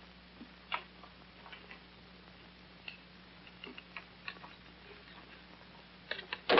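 Scattered faint clicks and taps of small glass chemistry apparatus being handled, irregularly spaced. Under them runs the steady low hum and hiss of an old film soundtrack, and a louder knock comes at the very end.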